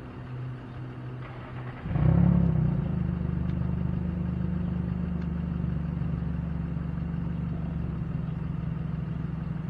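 A vehicle engine idling. About two seconds in it becomes suddenly louder with a brief rise in pitch, then settles into a steady idle.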